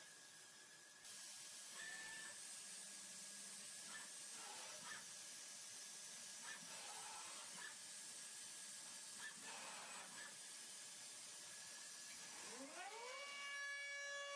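Datron CNC milling machine: faint whines of the axis motors gliding up and down in pitch as the head moves over the aluminium block, over a steady hiss. Near the end the spindle spins up with a quickly rising whine that settles into a steady high tone.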